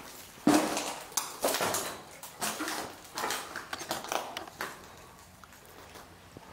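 Footsteps crunching over broken glass and debris on a tiled floor, about two steps a second, stopping about five seconds in.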